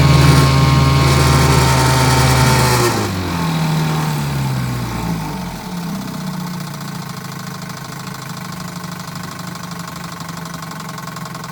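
1957 Johnson 5.5 hp two-stroke outboard running in a test tank. It is throttled back from a fast run to a steady idle about three seconds in, running smoothly on its replacement power head with no rod knock.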